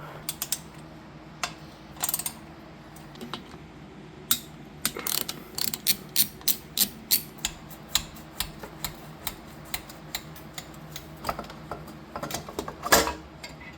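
Hand socket ratchet clicking in short strokes while working a bolt. The clicks come irregularly at first, settle into a run of about three a second in the middle, and the loudest cluster comes near the end.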